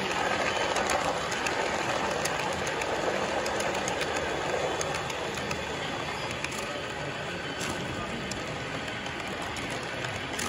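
Model passenger train running past close by: a steady rumble of metal wheels on the rails with faint clicks at the track joints, easing off a little as the cars go by.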